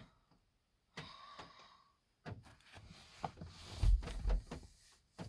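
A mail package being handled and opened: scattered rustles and small clicks, with a dull low thump about four seconds in.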